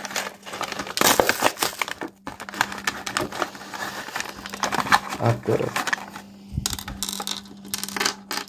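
Crinkling and rustling of a LEGO minifigure packet being torn open and handled, with small plastic pieces clattering onto the desk.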